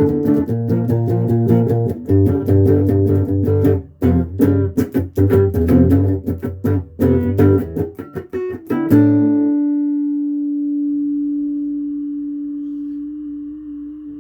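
Music of quickly plucked notes that stops about nine seconds in on a final held note, which rings on and slowly fades away.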